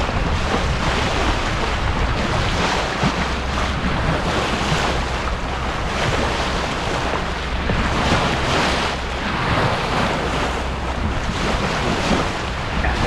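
Steady wind noise on the microphone, with the rush of open water around a boat.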